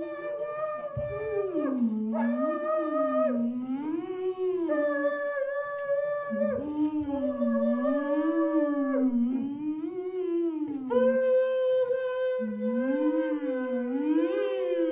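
Two voices vocalising wordlessly in a contemporary music piece, sung with marshmallow in the mouth: one holds a steady high note, breaking off and coming back in a few times, while the other slides up and down in slow, howl-like swoops about once a second.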